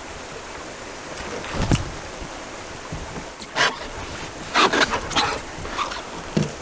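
Irregular splashes and knocks over a steady wash of wind and lapping water around a canoe.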